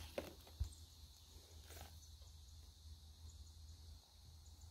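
Quiet handling of a mushroom picked from the forest floor: brief rustles of leaf litter near the start and again just before two seconds, with a soft knock about half a second in, over a steady low rumble.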